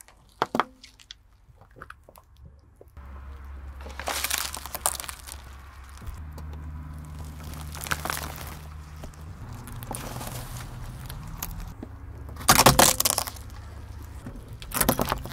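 A car tyre rolling slowly over toys and crushing them: a few sharp squelching pops from squishy mesh stress balls at the start, then, over the car's low steady engine hum, crackling and squishing, and loud crunching cracks near the end as a hard blue plastic toy shatters.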